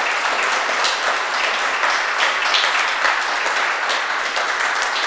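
Audience applauding: many people clapping at once, steady and loud.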